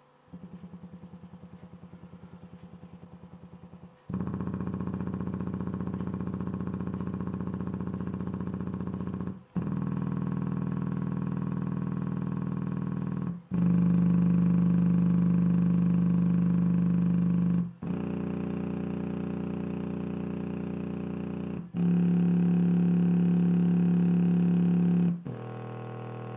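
An Alpine SWE-815's 8-inch subwoofer driver playing low test tones in free air, with the cone at large excursion. The tone holds steady, then changes in a step every four to five seconds, about six times in all. Each tone comes out buzzy and full of overtones, and the loudest steps fall in the middle and near the end.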